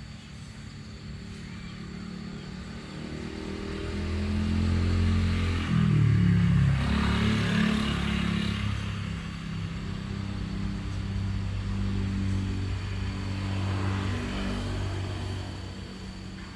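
A motor vehicle's engine running nearby, growing louder over the first few seconds, loudest in the middle with some changes in pitch, then easing off near the end.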